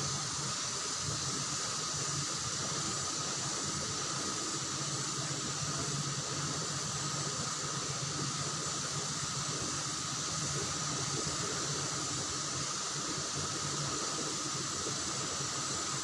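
Steady rush of a fast-flowing river current, an even hiss that holds at one level throughout, with a thin steady high tone running through it.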